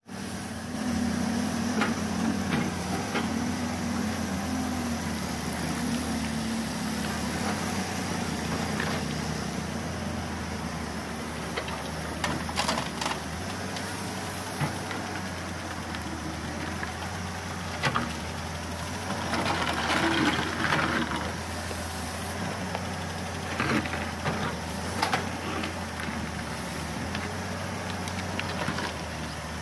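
Halla 130 wheel excavator working: its diesel engine runs steadily, with scattered knocks and clanks as the bucket digs out broken concrete road and loads the rubble into a tractor trolley. A louder rattling rush of rubble comes about two-thirds of the way through.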